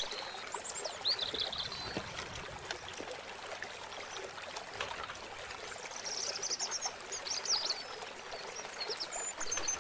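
Shallow stream trickling over rocks, a steady wash of water, with small birds chirping now and then, most in a run of quick chirps past the middle.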